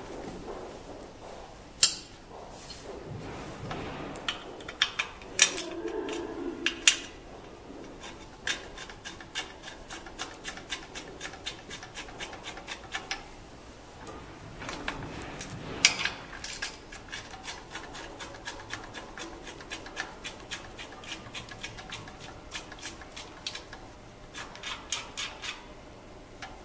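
Steel arms and clamp fittings of a manual screen printing press clanking and knocking as they are handled and fitted, with a few sharp knocks and runs of rapid small clicks in the middle and near the end, along with some rubbing of metal on metal.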